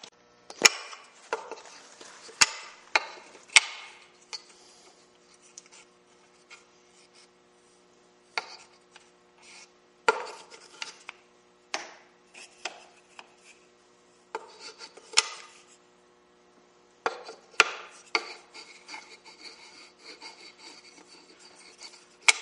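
Wooden game pieces handled and set onto a wooden board's dowel pegs: sharp wood-on-wood knocks at irregular intervals, several close together in the first few seconds and again near the end, with light rubbing in between.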